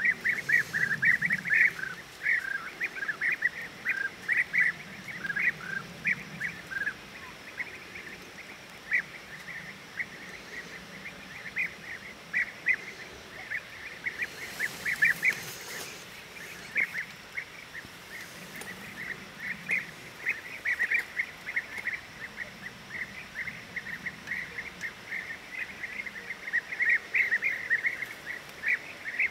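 European bee-eaters calling: short, rolling, high calls, several a second in clusters, going on almost without a break. A brief hiss of noise comes about halfway through.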